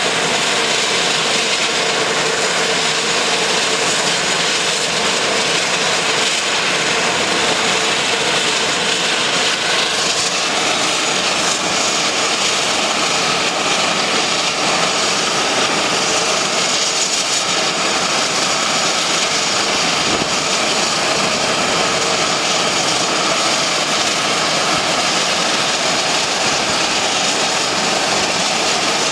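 Beech 1900D's Pratt & Whitney PT6A turboprop engine running steadily on the ground, a constant engine whine with propeller noise.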